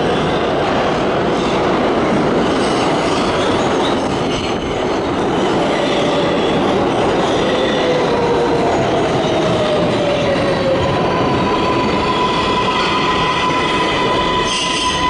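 New York City 7-line subway train running into an underground station: a steady loud rumble and rattle of wheels on rail. A falling whine rises out of it partway through, and a steady high-pitched whine sets in over the last few seconds.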